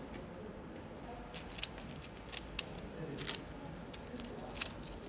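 Light metallic clinks and taps as small steel parts of a Nissan GT-R engine's cylinder head, the camshaft bearing caps and their bolts, are handled and set in place. The clinks come as a scattered series from about a second and a half in, the sharpest near the middle and near the end.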